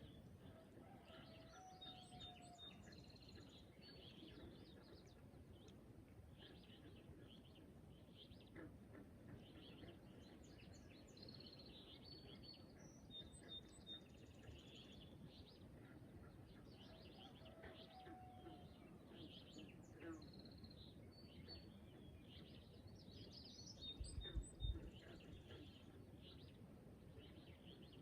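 Faint morning chorus of songbirds: many short chirps and trills, with a few whistled phrases that repeat, over a low steady outdoor rumble. A brief low bump near the end.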